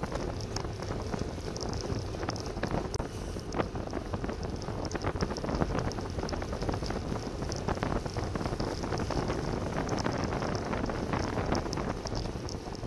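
Wind rushing over the microphone of a bike-mounted camera on a road bike at about 25 to 30 mph, mixed with tyre and road noise and frequent small clicks and rattles.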